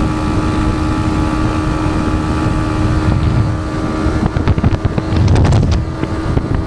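Yamaha MT-15's 155 cc single-cylinder engine running at a steady high cruise, around 120 km/h, with wind rushing over the microphone. A short gust of louder wind rumble comes about five seconds in.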